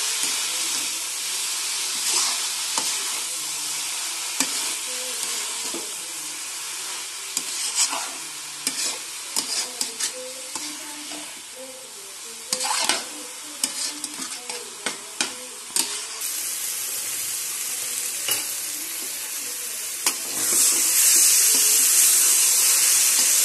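Chopped fenugreek, spinach and bathua greens sizzling as they fry in oil in a metal kadai, stirred with a steel spatula that scrapes and taps against the pan. A run of quick taps and scrapes comes in the middle, and the sizzle grows louder near the end.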